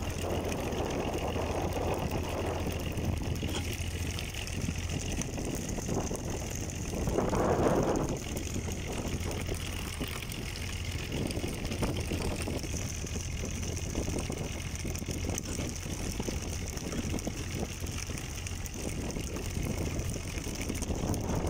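A fishing boat's engine running steadily with a low hum. Several swells of rushing noise come and go over it, the loudest about seven seconds in.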